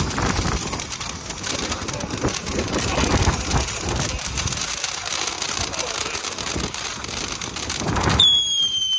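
Ground fountain firework spraying sparks: a steady loud hiss full of crackles. About eight seconds in, a high whistle starts, falling slightly in pitch, as the hiss dies away.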